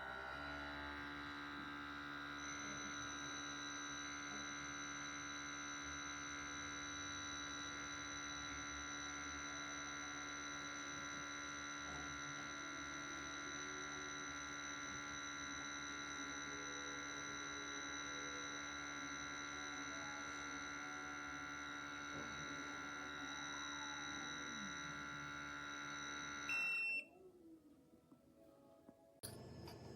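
Small electric pump of a rechargeable portable espresso maker running with a steady buzzing hum while it brews, cutting off sharply near the end.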